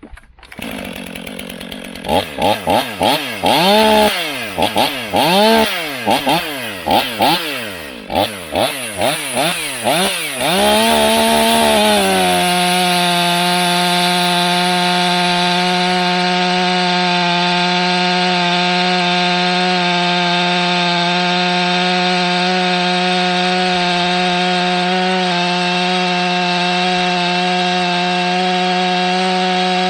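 Stihl MS500i 79 cc fuel-injected two-stroke chainsaw. Its engine is blipped up and down about once a second, then from about twelve seconds in it holds a steady high pitch at full throttle as the 28-inch bar cuts through seasoned ash.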